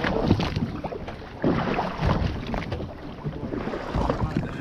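Wind buffeting the microphone on an open boat, in irregular gusts, with water noise around the hull.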